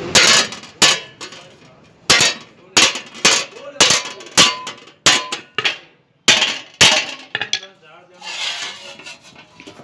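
Hammer blows on metal: about a dozen sharp clanks at irregular spacing, each ringing briefly, then a short rasping noise near the end.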